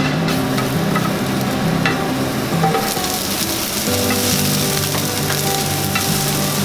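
Sliced shiitake mushrooms and sugar snap peas sizzling in white sesame oil in a nonstick frying pan while being stirred with a nylon slotted turner, with a few light clicks as it moves against the pan. The sizzle grows brighter about three seconds in.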